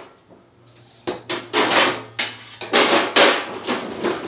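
Kitchen clatter: a quick run of knocks and scrapes from dishes and utensils being handled on a counter, starting about a second in.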